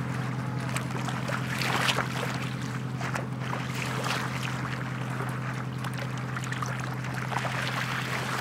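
A sailing yacht's inboard engine runs at a steady low hum as the boat motors away along the canal. Water crackles and laps over it.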